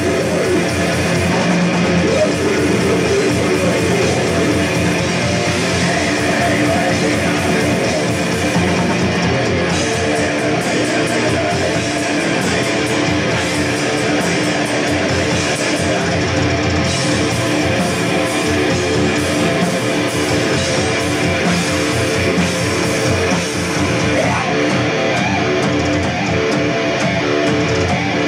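A black metal band playing live and loud: fast, distorted electric guitar over drums and cymbals, heard from the crowd.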